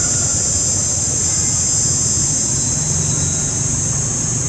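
Steady, high-pitched insect chorus droning without a break, over a low, steady rumble.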